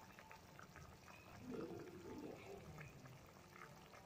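Thick fenugreek and tamarind curry bubbling hard in a kadai: faint, frequent little pops of bursting bubbles.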